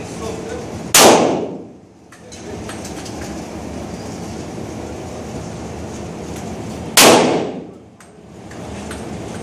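Two single shots from a Glock pistol, about six seconds apart, each a sharp crack that rings off quickly.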